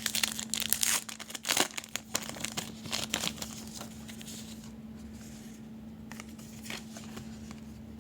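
A trading-card pack wrapper being torn open and crinkled: a dense run of irregular rustling and tearing for the first three and a half seconds, then only light scattered rustles.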